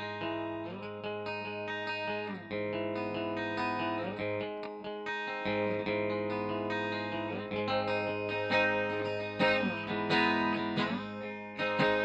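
Electric guitar, a Fender Jaguar, played through an Electro-Harmonix Polyflange in Double Track mode set for an ambient resonance sound, into a Fender Twin Reverb amp. Ringing chords change every second or two, with a short sliding pitch at each change, over a steady low hum.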